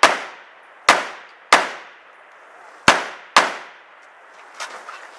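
Rifle firing five shots in irregular succession, the first two and last two closer together, each shot followed by a short echoing tail. A few fainter clicks follow near the end.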